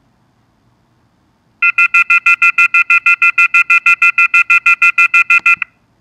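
A desktop alarm clock app's alarm going off: rapid electronic beeping, about six beeps a second. It starts about one and a half seconds in and cuts off suddenly after about four seconds as the alarm is switched off.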